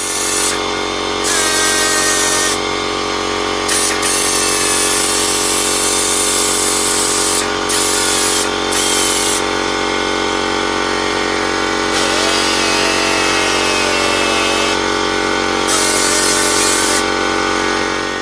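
Vertical baler's electric motor and hydraulic pump running steadily under power, with a high hiss that cuts in and out several times.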